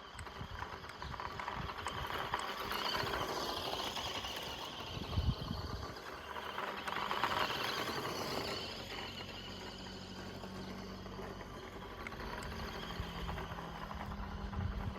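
1:14 scale Audi RS Q e-tron RC car driving over dirt: small electric motor whining, rising and falling with the throttle, over the crackle of tyres and loose grit, with a sharp knock about five seconds in.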